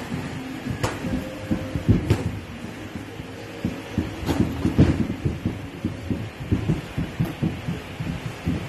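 Sparring boxers' feet thudding and shuffling on the ring canvas: dense, irregular low thuds, with a few sharper smacks about 1, 2 and 4.5 seconds in.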